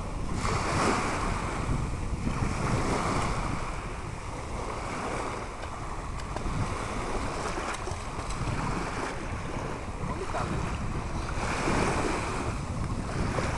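Small sea waves washing in the shallows, the rush swelling and fading every second or two, with wind rumbling on the microphone. A swimmer splashes in the water.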